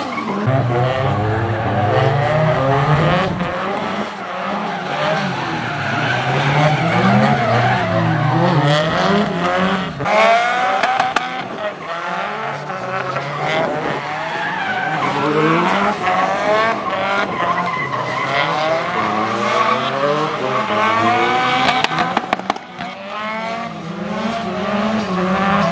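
Two drift cars sliding in tandem, their engines revving up and down again and again, with tyres skidding.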